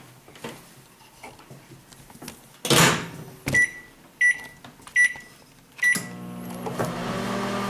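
Microwave oven door shut with a knock, then four short keypad beeps as the time is entered, and about six seconds in the oven starts running with a steady hum.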